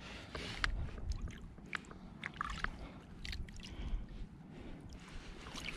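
Shallow sea water sloshing and splashing in small irregular ticks and plops as a landing net holding a sea trout is moved about in it, over a low rumble of wind on the microphone.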